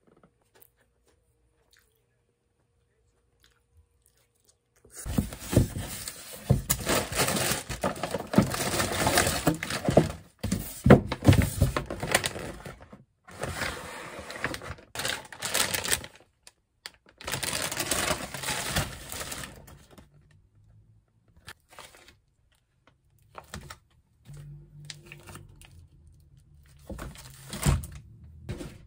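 Plastic grocery packaging crinkling and rustling as items are unpacked from a cardboard delivery box, starting about five seconds in. Near the end it thins to scattered knocks as wrapped packs are set down on the counter.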